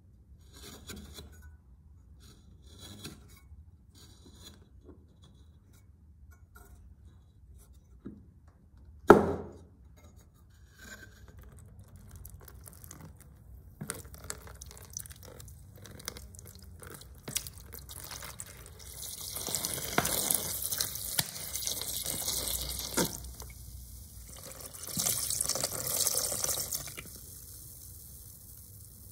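Scattered light clicks and one sharp knock about nine seconds in, then water running in two stretches of a few seconds each near the end.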